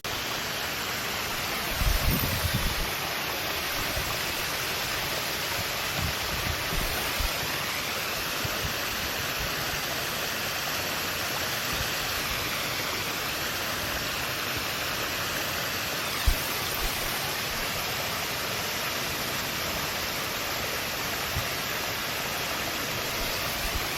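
Waterfall rushing steadily, with a few brief low thumps about two seconds in and again near the middle.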